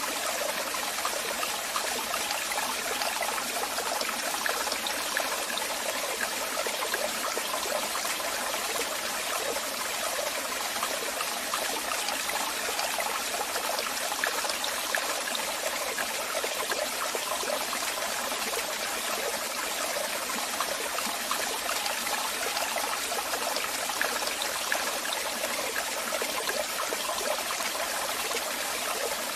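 Waterfall: water falling and splashing in a steady, unbroken rush with fine spatter and little deep rumble.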